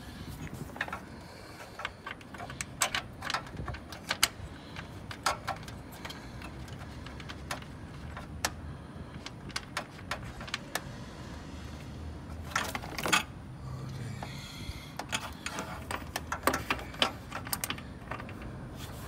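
Metal hand tools clicking and clinking irregularly as a socket and extension work on a fitting at the base of the radiator, with a quick run of clicks about twelve seconds in.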